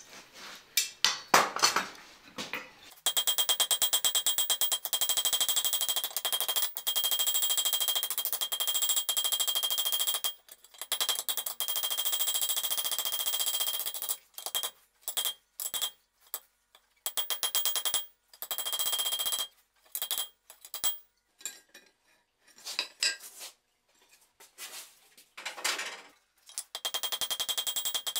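Blacksmith's hand hammer striking a hot iron brake bar on an anvil in fast runs of blows, the anvil ringing with each run. The runs break off in short pauses, and the first few seconds hold only scattered clanks of metal.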